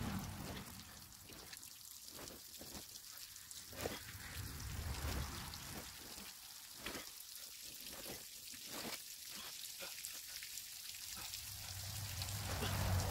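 Large water-laden plastic tarp being gathered and hauled, its sheeting rustling and crackling in faint irregular snaps, with water spattering off it.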